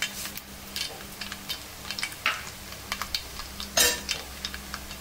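Mustard seeds starting to splutter in hot coconut oil in an uruli: a light sizzle with irregular sharp pops and crackles, one louder pop near the end. A steady low hum runs underneath.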